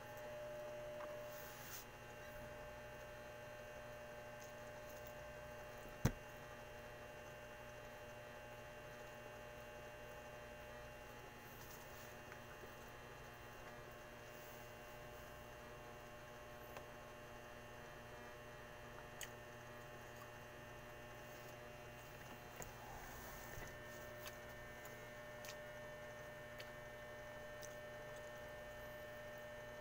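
Steady electrical hum with a few held tones, under faint scattered clicks and smacks of eating rice and fish by hand. One sharp click about six seconds in is the loudest sound.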